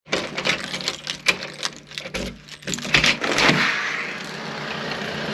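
A run of sharp knocks and clatter for the first few seconds, then a steady low engine hum like a car idling.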